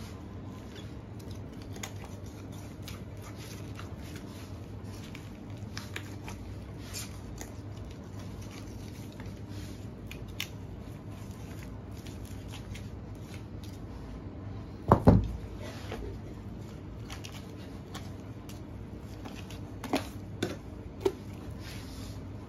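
Boning knife slicing and scraping through a beef hindquarter as the meat is cut away from the bone: soft, irregular cutting and scraping sounds over a steady low hum. A heavy thump about 15 seconds in and a few smaller knocks near the end.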